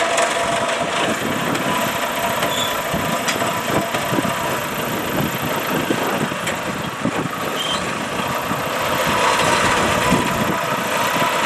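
Engine of a small tracked machine running steadily as it crawls up ramps off a boat onto the bank.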